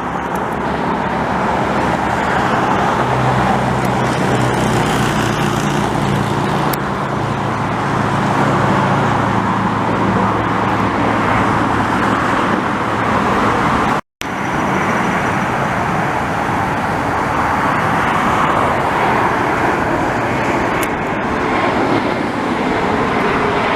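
Loud, steady engine roar with a low drone underneath in the first half. The sound cuts out for a moment about fourteen seconds in, then the roar resumes.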